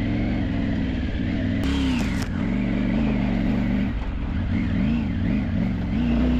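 Off-road vehicle engine pulling over rough ground, its pitch rising and falling again and again as the throttle is worked, with a short burst of hiss about two seconds in.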